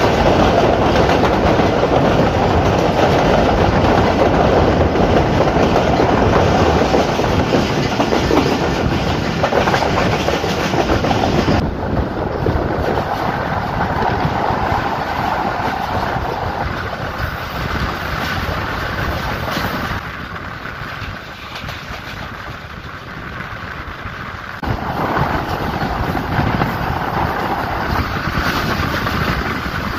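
Passenger train running on the line, heard from aboard: a steady rumble and rush of wheels on the rails. The high hiss drops away about a third of the way in, and the noise eases for a few seconds about two-thirds through before rising again.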